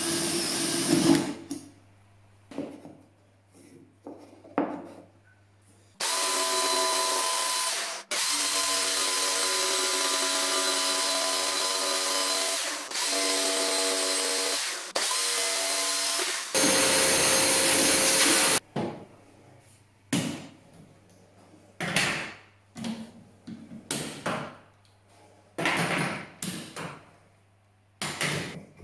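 A cordless drill finishes boring through the plate in the first second or so. From about six seconds in, a jigsaw runs steadily as it cuts, stopping briefly several times over some twelve seconds, and scattered knocks and clatter follow.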